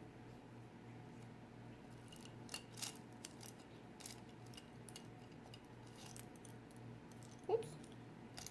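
Faint scattered clicks and clinks of painting supplies being handled, such as a paint tube and brush, over a low steady hum. A short squeak comes near the end.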